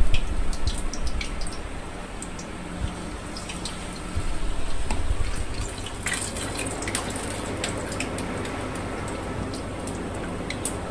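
Batter-coated soya chaap sizzling and crackling as it deep-fries in hot oil in a kadai: a steady hiss with scattered pops, a little louder between about four and seven seconds in.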